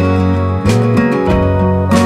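Background music with a strummed guitar, chords sounding about every half second.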